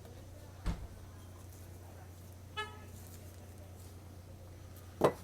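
Cups and containers being handled at a self-service coffee station: a thump under a second in and a sharp knock near the end, over a steady low hum. A brief, high toot sounds about halfway.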